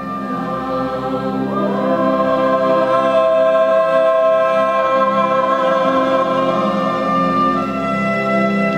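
Mixed ensemble of male and female voices singing long held notes together in chords, the chord moving upward about two seconds in and changing again near the end.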